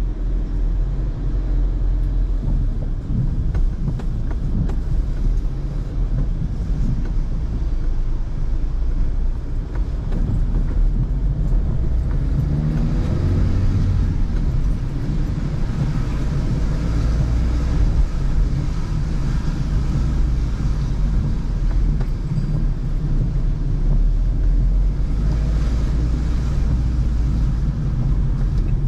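Car driving on wet streets, heard from inside the cabin: a steady low rumble of engine and road noise with tyre hiss on the wet road, swelling a couple of times.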